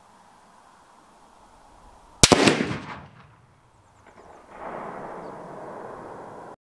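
A single rifle shot from a Savage Axis bolt-action in .270 Winchester: one sharp crack about two seconds in that echoes and dies away within a second. A steady rushing noise follows for the last two seconds and cuts off suddenly.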